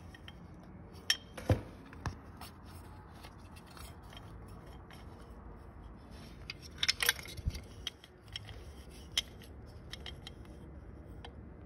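Parts of a disassembled electric coolant pump being handled: scattered light clicks and taps, with a quick cluster of clicks about seven seconds in.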